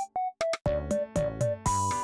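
Electronic background music: a synthesizer melody of short, stepping notes over a beat, with a brief break a quarter second in.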